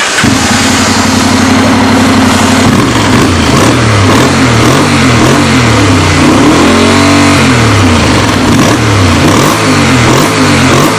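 Honda NC700's parallel-twin engine through a Roncar Coyote 2Way sport exhaust with its butterfly valve open in the sport setting. It idles steadily for about three seconds, then is blipped repeatedly, the note rising and falling in pitch, with one higher rev a little past the middle.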